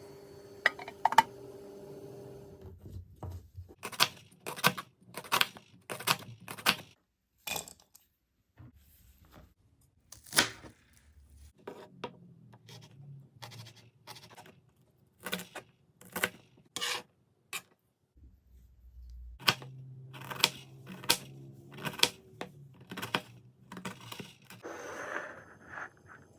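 Kitchen food-preparation handling: a long run of sharp clinks and knocks of utensils and dishes, with scraping and rustling between them. A low steady hum comes in at the start and again about two thirds of the way through.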